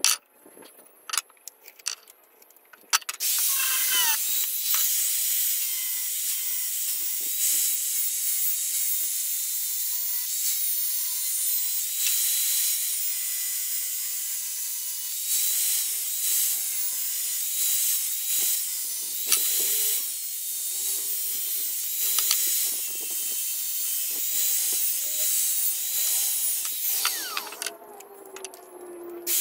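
A few sharp clicks, then a power tool starts about three seconds in and runs steadily on the steel of a chainsaw bar with a high hissing grind, stopping shortly before the end.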